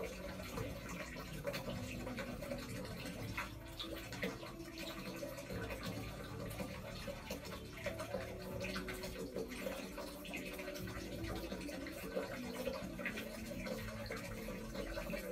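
Fingers rubbing and scratching at skin close to the microphone, with small scattered clicks and crackles over a steady low noise.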